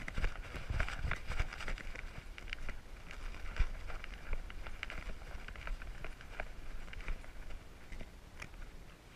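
Harness-mounted action camera jostling on a German Shorthaired Pointer as it runs through long grass and brush: irregular rustling and brushing of leaves and stems against the camera, with dull thumps from its footfalls. The rustling eases off near the end as the dog stops at a blueberry bush.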